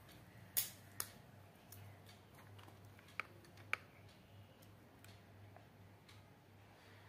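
Light clicks and taps from handling paper cutouts and a plastic hot glue gun: two sharp ones in the first second, then two brief, higher, ringing clicks a little past three seconds. A faint low hum sits under them.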